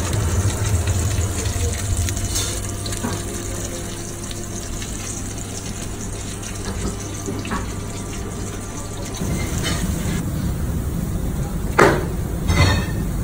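Steady rushing noise of commercial kitchen fans (oven and extractor hood), with a low hum that shifts about nine seconds in. Two short, sharp swishes come near the end.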